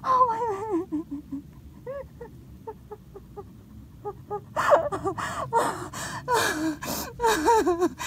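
A woman crying: wavering, falling whimpers at first, a few faint short cries, then from about halfway in loud gasping sobs mixed with whimpers.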